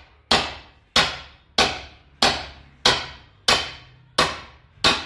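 Steady hammer blows on a steel suspension lower control arm, knocking the old ball joint loose: eight sharp, evenly spaced strikes about 1.5 a second, each ringing briefly.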